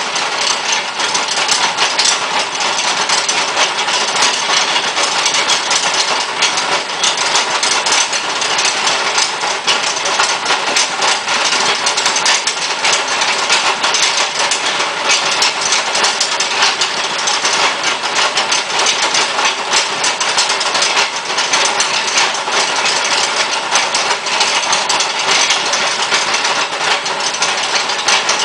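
Miniature drilling rig's electric drill motor running under load as its bit drills into a rock sample with water flushing the hole. A loud, steady grinding whir, full of fine rapid ticks, with no change in pace.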